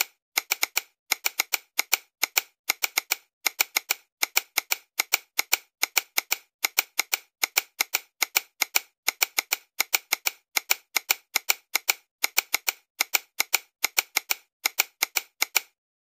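Typing sound effect: a rapid run of sharp key clicks in small clusters, with dead silence between them, stopping shortly before the end.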